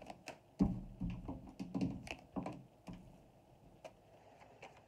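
A deck of tarot cards being shuffled by hand: an irregular run of card taps and soft thumps as the cards are pushed together, thinning out in the second half.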